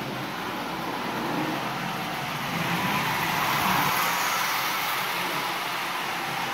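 Marx tinplate toy train, powered by a small 12-volt DC supply, running around three-rail track with a steady rolling rattle of wheels and motor that grows louder about three to four seconds in as it passes close, then eases off.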